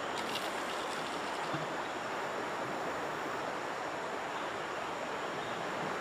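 Steady rushing of flowing river water, an even hiss with no change, with a few faint ticks right at the start.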